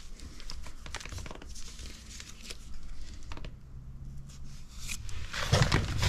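Hand tools and pieces of electrical wire being picked up and handled: scattered light clicks, clinks and rustles, getting busier and louder near the end.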